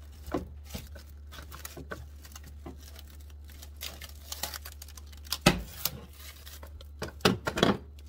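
Plastic cling wrap crinkling and rustling as hands press it tight over a glass bowl of bun batter. There is a louder knock a little past halfway, and a burst of louder rustling near the end.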